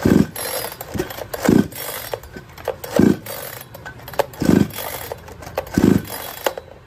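Aryantra 58cc two-stroke chainsaw being pull-started: five pulls of the recoil starter cord about a second and a half apart, each a short whir as the engine turns over without firing. The saw has a starting problem and does not catch.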